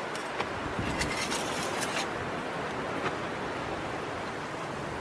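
A few light metallic clicks and clinks as a cooking pot and its titanium lid are handled and lifted off a coffee-can alcohol stove stand, over a steady outdoor noise like wind.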